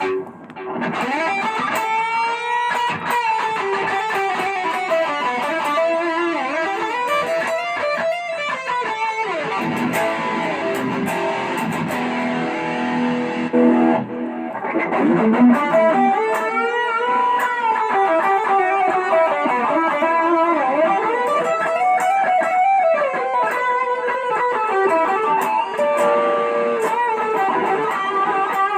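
Electric guitar played through a BOSS OD-20 overdrive pedal: distorted single-note lead lines with string bends and vibrato. The playing starts abruptly and breaks off briefly about halfway through.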